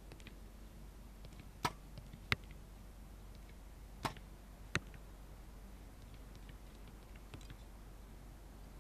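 Two compound bow shots about two and a half seconds apart, roughly a second and a half in and again about four seconds in. Each is a sharp snap of the release, followed about 0.7 s later by a sharp click from the arrow striking the target.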